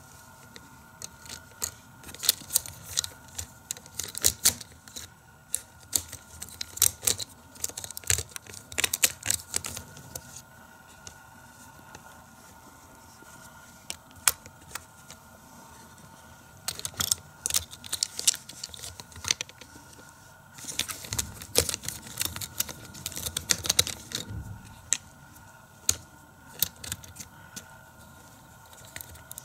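Plastic parts of a Hot Wheels Power Lift Garage playset (crane, lift, ramps) and a die-cast toy car clicking, clattering and rattling as they are handled, in several bursts of small clicks with quieter gaps between.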